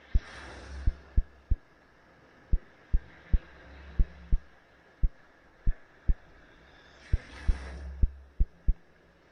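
Waves washing up on the beach, one wash near the start and another about seven seconds in, over a faint steady hiss. Loudest are short, sharp low thumps, roughly two a second at uneven intervals.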